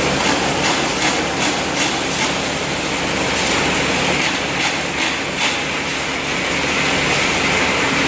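Wire spot-welding machine running with a steady electrical hum and noise, with irregular short clicks and knocks about once or twice a second as the welds are made.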